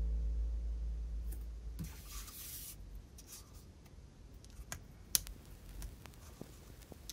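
LEGO plastic bricks being handled by fingers: a short scratchy rustle about two seconds in, then scattered small clicks, the sharpest a little past halfway as a wedge piece is pressed onto a plate.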